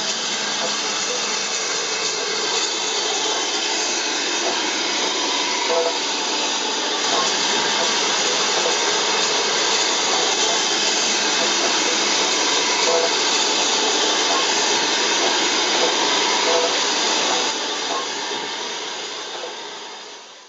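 Steady hiss of steam escaping from a BR Standard Class 9F steam locomotive, fading out over the last few seconds.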